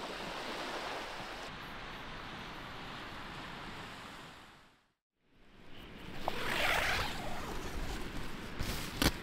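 Small waves lapping on a black sand beach: a steady wash of water that fades out about halfway through. After a moment of silence a different outdoor ambience rises, with a short sharp click near the end.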